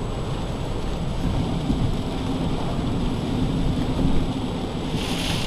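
Low rumble of rolling thunder over a few seconds. About five seconds in, it gives way to the steady hiss of heavy rain on a car.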